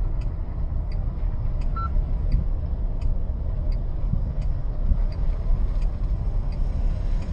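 A vehicle driving along a highway: steady deep rumble of road and engine noise. Over it runs a faint regular tick, about three every two seconds, and a short beep about two seconds in.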